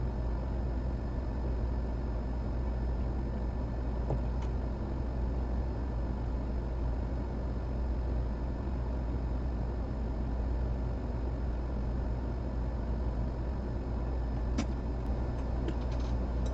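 Steady whirring hum of a small fan with air noise, unchanging throughout, with one sharp click near the end.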